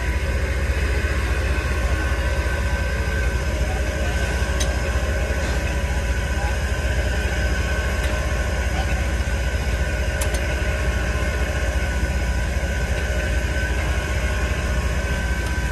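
A large engine running steadily, with a deep low rumble and a faint steady whine on top.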